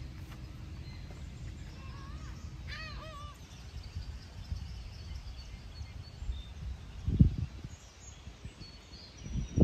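A bird calling a few quick rising-and-falling chirps about two to three seconds in, over a steady low outdoor rumble. Two loud low bumps come near the end.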